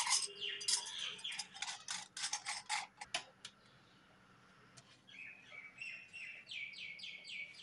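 Sharp clicks and scrapes of the steel chakli mould being handled as dough is packed into it by hand, a quick run in the first three seconds or so. Then, from about five seconds in, a bird chirps repeatedly with short falling chirps.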